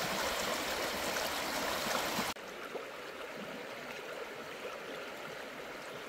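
Steady rush of flowing river water. It is louder for the first couple of seconds, then drops abruptly to a softer level.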